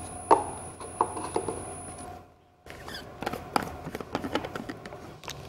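Scattered light knocks and clinks as a thermos flask, a small metal bowl and a glass are handled and set down on a table. The sound drops out completely for a moment a little after two seconds in.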